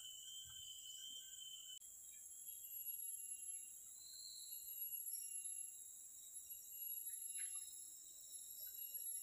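Steady, high-pitched chorus of insects (crickets or cicadas) in tropical riverside forest, with a couple of short chirps over it.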